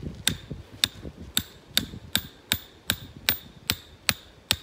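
A 2.5-pound hammer pounding a trap stake down into the ground: about eleven steady blows, a little over two a second, each a sharp metallic clink with a short ring.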